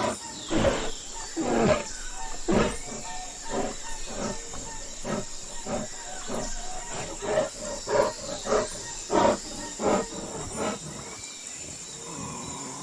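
Velociraptor sound effect: a run of short, harsh growling calls, about one or two a second, stopping about eleven seconds in, over a steady high whine.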